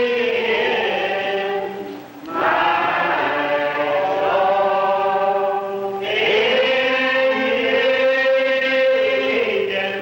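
A congregation singing a slow hymn in long, drawn-out notes, the phrases breaking about two seconds and six seconds in.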